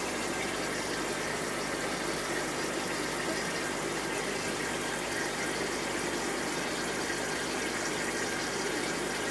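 Steady bubbling and trickling of air-driven aquarium sponge filters, air rising through their lift tubes in a continuous stream.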